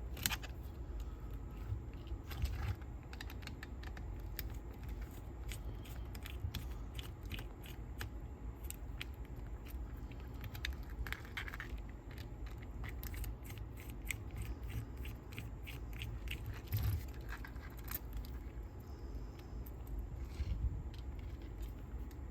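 Screwdriver taking out the remaining screws of a Sony TC-K890ES cassette deck's chassis: irregular light metallic clicks and ticks of the tool, screws and small metal parts being handled, over a steady low background rumble.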